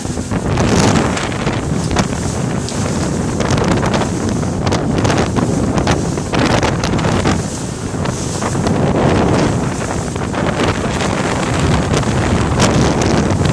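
Wind buffeting the microphone aboard a motorboat running fast across open sea, at about 26 mph, with a steady rush of engine and water noise beneath and frequent short gusty thumps.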